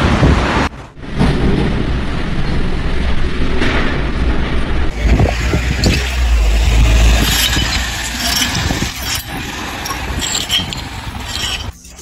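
Storm wind buffeting the microphone: a steady rushing noise with a short break about a second in and heavier low rumbling from about five to seven seconds in.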